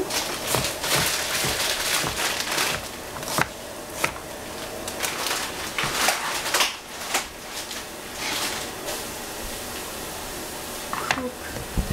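A kitchen knife chopping an onion on a plastic cutting board, a quick run of sharp chops. The chopping eases off about seven seconds in, as the pieces are scraped up with the wide blade, and a few more knocks come near the end.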